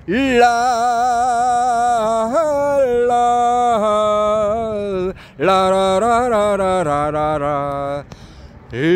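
A man singing a slow Korean song without accompaniment, holding long notes with vibrato. The notes come in phrases broken by a short breath about five seconds in and another near the end.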